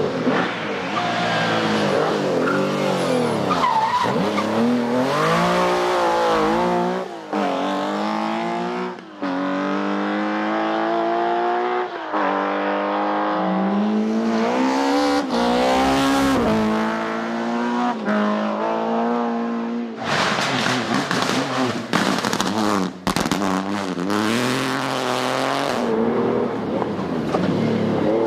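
Rally car engines revving hard, their pitch climbing and dropping through gear changes. The sound comes as a string of separate passes with sudden cuts between them.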